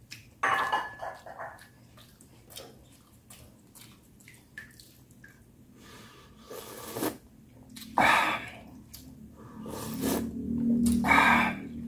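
Several loud slurps of hot sinigang broth sipped off a metal spoon, short noisy bursts spaced a few seconds apart.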